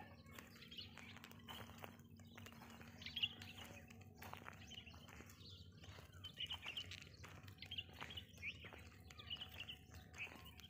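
Small birds chirping: short, high calls every second or so, faint over a quiet background with scattered soft clicks, one call louder a little past three seconds in.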